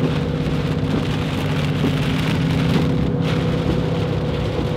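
Heavy rain drumming on a moving car from inside the cabin, with tyre spray on the wet highway and the steady drone of the Ford Mustang GT's 4.6-litre V8 cruising underneath.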